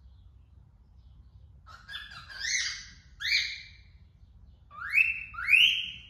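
Female cockatiel singing: about four rising whistled calls in two pairs, the first pair about two seconds in and the louder second pair near the end.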